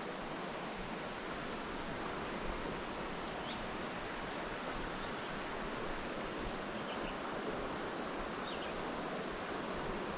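Steady rush of creek water, with a few faint, short, high chirps scattered over it.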